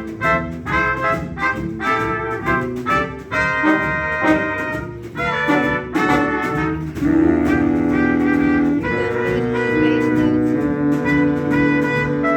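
Swing band's horn section playing an instrumental passage of a 1930s jazz standard: short stabbed chords at first, then sustained chords from about seven seconds in.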